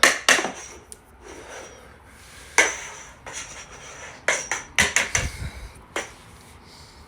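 A string of sharp knocks and clatters at irregular intervals: two at the start, a loud one about two and a half seconds in, a quick cluster around four to five seconds, and a last one at about six seconds.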